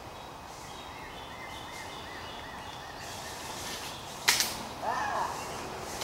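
A single sharp airsoft gun shot about four seconds in, the loudest sound here, after a run of faint, quickly repeated bird chirps; a short pitched call follows the shot.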